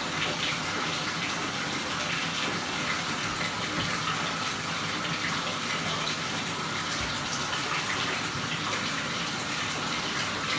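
Bathtub tap running water steadily into the tub.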